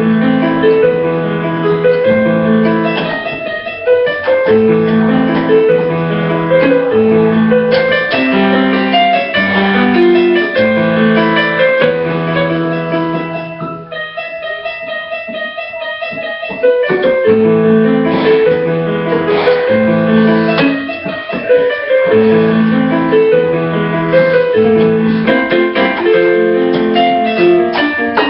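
Electronic keyboard playing a tune in a piano voice, the melody over repeated held low chords. About halfway through, the low chords stop for a few seconds while the higher notes go on.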